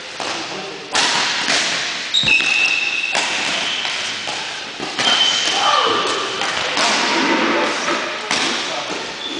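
Badminton rally in a gym hall: a series of sharp racket strikes on the shuttlecock and thuds of footfalls, with short high squeaks of shoes on the court floor.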